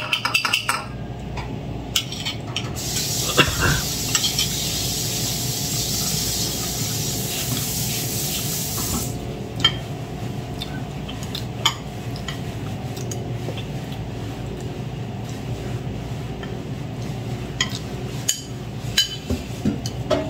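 Spoon and fork clinking and scraping against ceramic plates and bowls during a meal, in scattered taps. A steady hiss comes in about three seconds in and cuts off suddenly about six seconds later.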